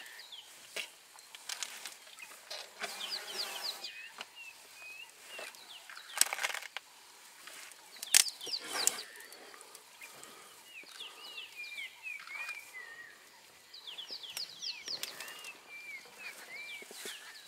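Wild birds calling in repeated bursts of quick, falling whistled notes and wavering trills. A few short sharp noises cut in, the loudest about six and eight seconds in.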